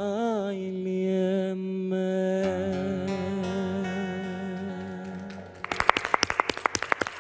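A male voice sings the last line of a Pontic Greek song over classical guitar, ending on one long held note with a slow vibrato. About five and a half seconds in, the music stops and hands start clapping.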